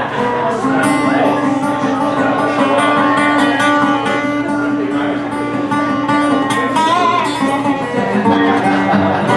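Solo resonator guitar playing a blues instrumental passage: a held low bass note under a run of picked notes, a few of them bent in pitch near the end.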